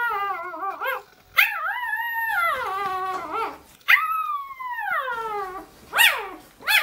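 Siberian husky puppy howling in its sleep while dreaming. It gives a string of long, wavering howls that slide down in pitch, then two short yelps near the end.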